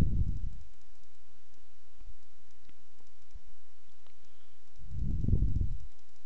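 Computer mouse clicking a few times faintly while paint is dabbed on in an image editor, over a steady hiss from the microphone. Two short low rumbles, one at the start and one about five seconds in, are the loudest sounds.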